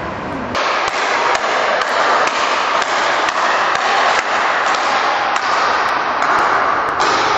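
Speedball rackets striking the tethered ball in quick, irregular sharp knocks over a steady noisy din in a sports hall. The din sets in abruptly about half a second in.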